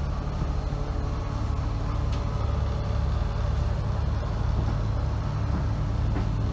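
Cummins 5.9-litre diesel engine of a 2006 Optare Solo bus idling with a steady low hum, heard from inside the passenger cabin.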